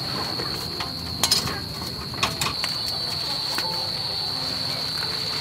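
A knife knocking sharply into jackfruit on a wooden board a few times, in short clusters, over a steady high-pitched insect drone.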